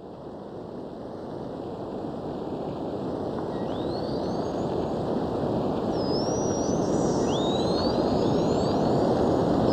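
Dolphin whistles: several high, sweeping rising and falling calls starting about three and a half seconds in. Underneath is a steady rushing noise that grows louder throughout.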